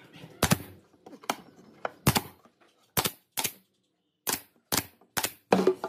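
Brad nailer firing about ten times in quick, uneven succession, each shot a sharp crack as a brad is driven into the pine corner joint.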